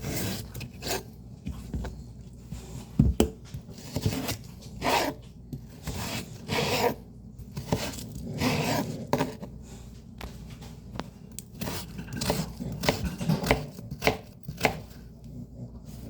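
Greens being chopped: irregular chopping strokes, sometimes in quick runs, over the steady hum of a fan.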